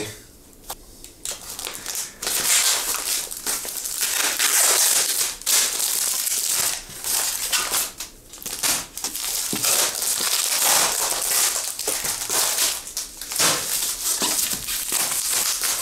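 Packing material of a mailed parcel being unwrapped and crumpled by hand: a long, almost unbroken crackling and crinkling with brief pauses.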